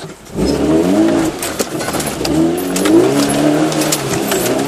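Suzuki SJ413's four-cylinder engine revving hard as the 4x4 drives into a mud hole, the revs surging up and dropping back several times, with knocks and rattles from the body.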